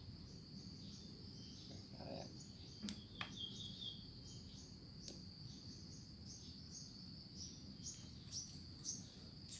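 Faint insect chirping: a steady high trill with short chirps repeating over it, and a few soft clicks.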